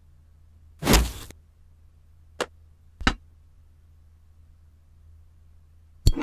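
Sparse hard clicks of plastic LEGO bricks knocking on a metal baking tray: a short noisy burst about a second in, then two single clicks a little over half a second apart, and another click near the end.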